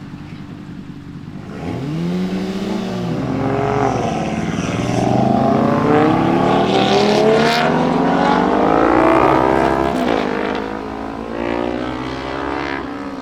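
A car engine blipped twice, then revved hard as the car accelerates away, pitch climbing steadily with a brief drop at a gear change about nine seconds in, then fading as it leaves.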